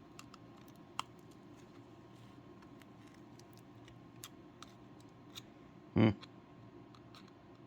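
Small tools clicking and tapping on the internal parts of a 3rd-generation iPod Nano while it is pried apart, with a louder short knock about six seconds in.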